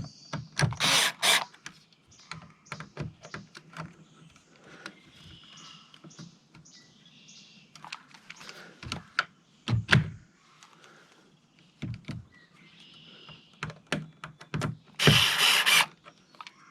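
Hand work on a camper's screen door while a plastic slider cover is fitted: many scattered clicks and knocks, with two short loud scraping rushes, one about a second in and one near the end.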